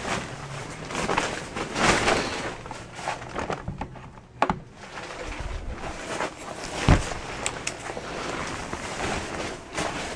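Rustling and handling noise as the camera is moved about, with two sharp knocks about four and seven seconds in, the second a heavier thump.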